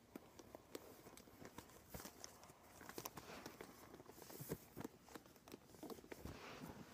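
Faint rustling of clothes being handled and pulled on, with scattered light clicks and taps.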